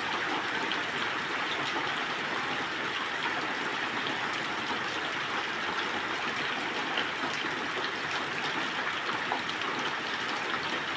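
Heavy rain falling steadily: an even hiss of water with scattered small ticks.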